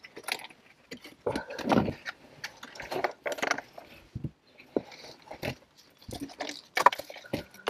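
A caver scrambling over rock: irregular scrapes, knocks and clinks of body and gear against stone, with the sharpest knock near the end.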